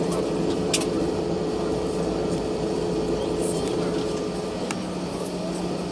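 Steady cabin hum of an Airbus A320 on the ground after landing, with its engines and air conditioning running. One steady tone in the hum stops about three-quarters of the way through, and there are a few faint clicks.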